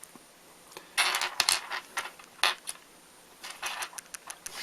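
Small metal parts of a disassembled 510 vape connector clinking and tapping together as they are handled. The clicks come in quick clusters: about a second in, again around two and a half seconds, and a run of lighter clicks near the end.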